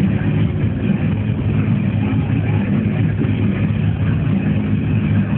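Loud dance music from a sound system, heavy in the bass and muddied and distorted by the phone's microphone.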